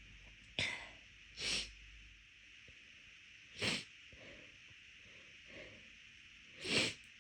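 Four short, breathy intakes of breath a second or more apart, much quieter than full sneezes: a person catching their breath during a fit of sneezing.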